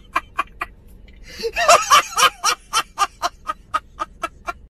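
A man laughing loudly in rapid, even pulses, about five a second. The laughter breaks off briefly about a second in, then comes back louder.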